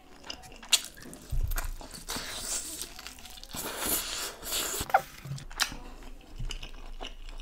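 Close-miked eating of a chicken thigh piece from a biryani: teeth biting and tearing the meat off the bone, with wet chewing and lip smacks. A few sharp clicks come through, the loudest about five seconds in.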